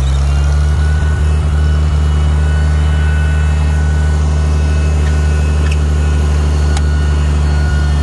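Farmall 756 tractor engine running steadily at a constant speed as the tractor drives through deep snow, loud from the operator's seat.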